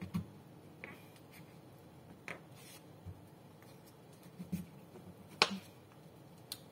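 A kitchen knife prying and scraping coconut meat away from the inside of a halved coconut shell: scattered short clicks and scrapes, the sharpest about five and a half seconds in.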